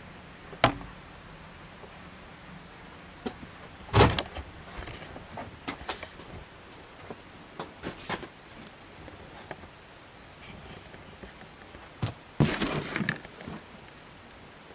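A few sharp knocks and clicks with some rattling, the loudest about 4 s in and a cluster a little after 12 s, over a steady faint hiss.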